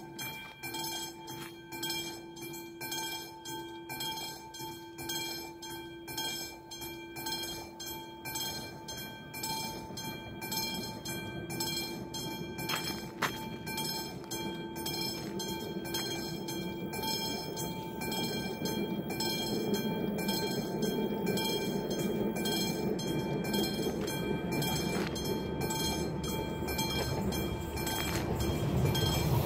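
A classic Czech level-crossing warning bell ringing in steady, even strokes. From about halfway on, the rumble of an approaching train grows steadily louder beneath it.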